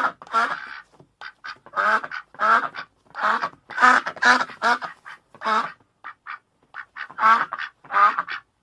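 Duck quacking: a rapid series of loud, nasal quacks, several a second, with a few shorter, softer quacks around the middle.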